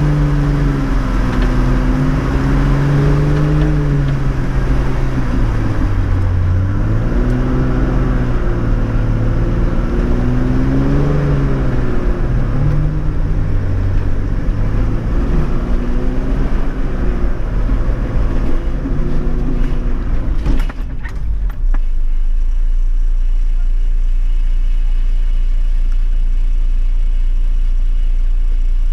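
Four-wheel drive's engine revving up and down under load as it works through deep ruts. About 21 seconds in come a couple of knocks, then the engine settles to a steady low idle drone.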